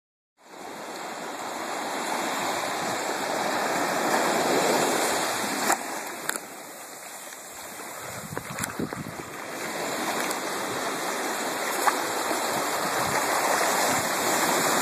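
Sea surf washing over rocks and sand, swelling and easing as the waves come in, with a few brief clicks.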